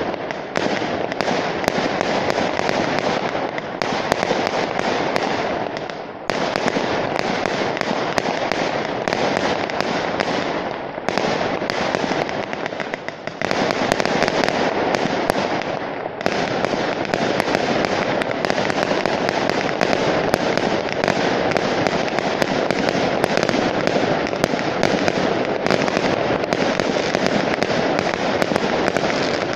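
Fireworks display: aerial shells bursting in a near-continuous barrage of bangs and crackle, many sharp reports every second, with a few brief lulls.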